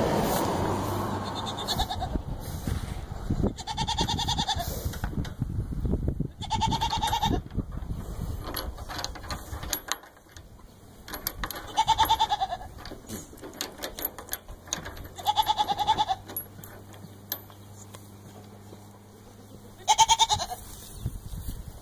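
Goats bleating: about six short calls a few seconds apart, with scattered clicks and rustling between them.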